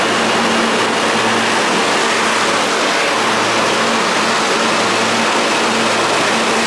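R160 subway train pulling into an underground station alongside the platform: a loud, steady rumble of wheels on rail with a low hum underneath.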